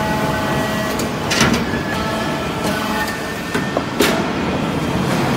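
Hydraulic briquetting press running: a steady machine hum with a faint whine, broken by a few sharp metallic knocks, the loudest about four seconds in.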